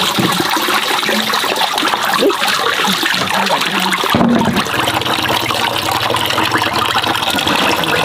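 Water pouring steadily from a bamboo pipe and splashing, with hands rubbing and swishing sticky rice in a basin of water to rinse it. The sound changes abruptly about four seconds in.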